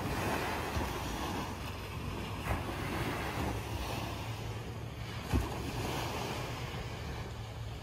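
Small sea waves breaking and washing up on a sandy beach, a steady surf wash, with wind buffeting the microphone and a brief thump a little past five seconds in.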